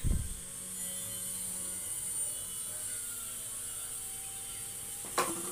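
Steady faint background hiss and hum (room tone), with a brief low thump at the very start.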